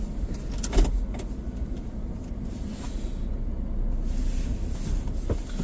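A vehicle running, a steady low rumble, with a short knock about a second in.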